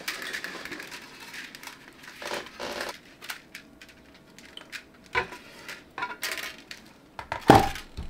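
Handling noise from a plastic 3D-printer filament spool: scattered clicks, rattles and rubbing as it is turned in the hands and filament is wound on. A louder knock comes near the end as the spool is set down on the desk.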